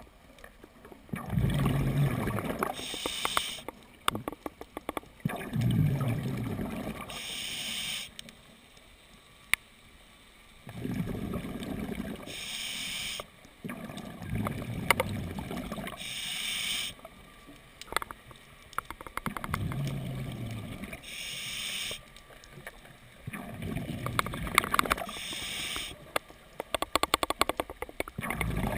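Scuba diver breathing through a regulator: a short hiss on each inhale, then a louder gurgling rush of exhaust bubbles on each exhale, about six breaths in a slow steady rhythm. A run of rapid clicks comes near the end.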